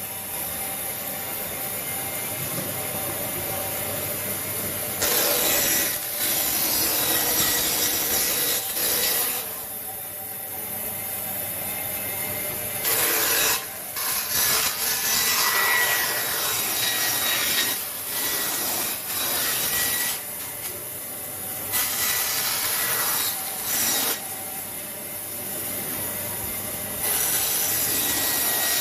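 A tool scraping on wood, a rough sawing or rasping noise that comes in stretches of a few seconds with short pauses between.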